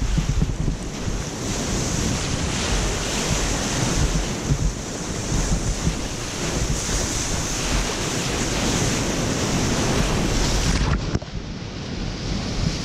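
Whitewater rushing and churning around a kayak surfing a river wave, with wind and spray buffeting the action-camera microphone in a heavy low rumble. The sound changes abruptly about eleven seconds in, losing some of its hiss.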